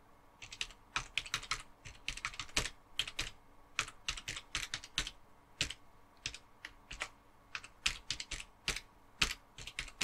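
Typing on a computer keyboard: an irregular run of key clicks, several a second, starting about half a second in.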